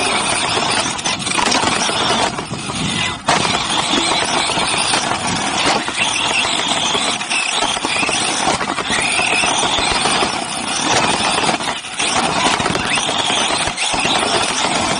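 Onboard sound of a 1/8-scale electric off-road RC buggy racing: the motor and drivetrain whine rises and falls with the throttle over a constant rush of tyre, dirt and wind noise, with brief dips in a couple of places.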